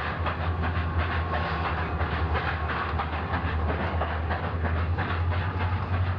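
Steam locomotive hauling a train, working hard, with a steady rapid beat of exhaust and running gear over a low rumble.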